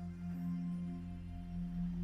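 Slow ambient meditation music: long held, ringing tones overlapping over a steady low drone.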